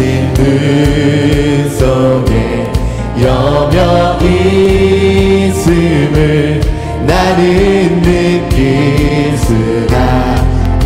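A worship team singing a Korean praise song together into microphones over instrumental accompaniment, with long held notes.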